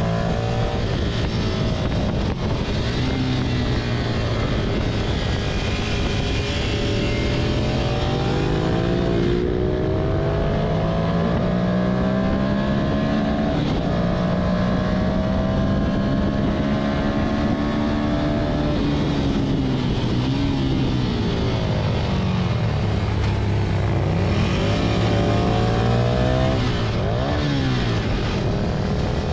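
Ducati Monster 659's L-twin engine heard onboard at speed, its pitch climbing under acceleration and dropping sharply at each upshift, then falling with quick rising-and-falling blips as it downshifts for a corner near the end, over a steady rush of wind noise.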